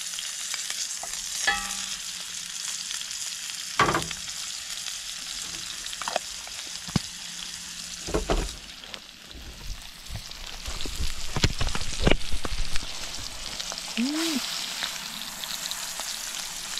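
Steak searing in butter in a cast-iron skillet, a steady sizzle and spatter, with a few sharp knocks about four, eight and twelve seconds in.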